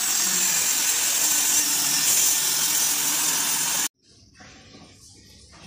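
Handheld electric circular saw cutting lengthwise through a plywood sheet, running loud and steady, then cutting off abruptly about four seconds in.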